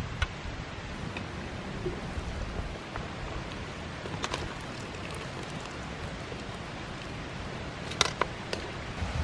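Long metal ladle stirring and clinking against a large pot of steaming soup, with a light clink at the start, another about four seconds in and a quick cluster near the end, over a steady rushing hiss.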